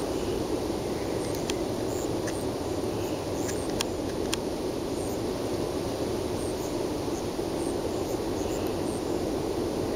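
Evening outdoor ambience: a steady low rumbling noise, with faint, scattered high chirps and a few light clicks.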